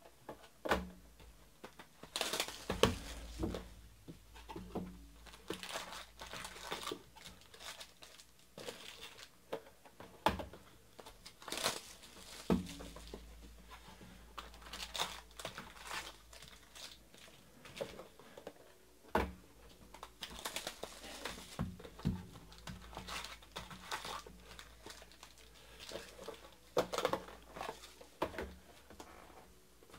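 Foil-wrapped trading card packs crinkling as they are pulled from cardboard boxes and stacked by hand, in irregular rustles and short crackles.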